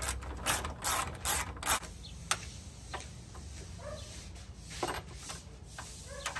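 Ratchet wrench clicking as a 10 mm radiator bracket bolt is backed out, in quick runs of strokes during the first couple of seconds, then only a few single clicks.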